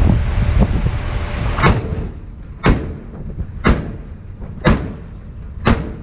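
A ship's bow deck gun firing single shots, five sharp reports evenly spaced about a second apart, over the steady rush of wind and the ship under way. A louder rush of noise fills the first second and a half before the first shot.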